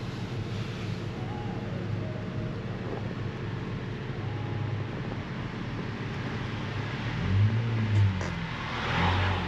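Pagani Zonda F's Mercedes-AMG V12 engine running steadily at low revs, then revving up and back down twice near the end.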